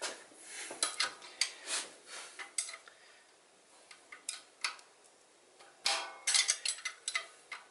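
A metal wrench clinking and clicking against the rocker-arm adjuster lock nuts of a 6.7 Cummins valve train as they are cracked loose. The clinks come in scattered bursts, with a quiet gap in the middle and a denser run near the end.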